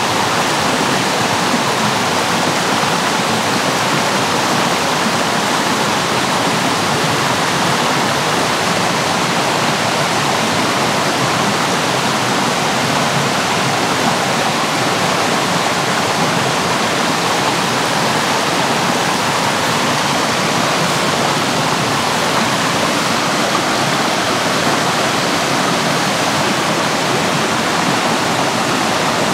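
Steady rushing water, even and unbroken, with no separate splashes or calls standing out.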